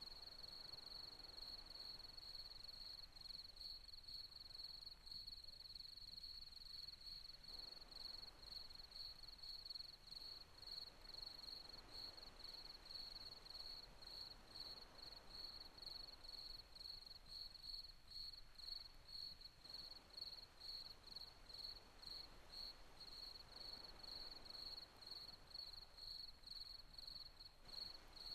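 Faint crickets chirping in a steady, regular pulse, over a low hiss.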